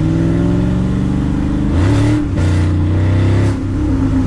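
A 2001 Roush Mustang's 4.6-litre two-valve V8 pulling under acceleration, its note climbing steadily, breaking briefly about two seconds in and dropping off near the end. It runs without misfire on new MSD coil-on-plug coils and fresh spark plugs.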